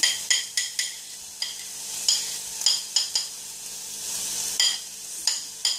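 A metal spoon clinks about a dozen times with a short ring as chopped carrot and bell pepper are scraped off a plate into a saucepan. Underneath, onion and garlic hiss as they sizzle in hot oil.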